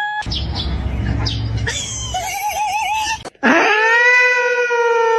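A pet animal's calls: a short wavering cry at about two and a half seconds, then, after a brief gap, one long, loud, steady howl that falls slightly in pitch.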